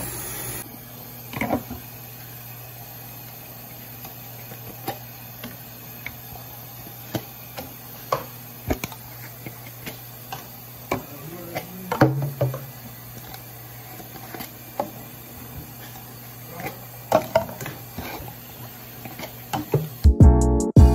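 Tap water running steadily into a stainless-steel sink of soapy water, with scattered light knocks and clatters of plastic containers and lids being handled and dropped in. Music with piano comes in near the end.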